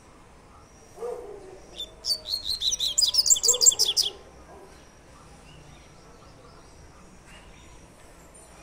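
Caged double-collared seedeater (coleirinho) singing one short song in the 'tui-tui' style: a fast run of high, repeated notes lasting about two seconds.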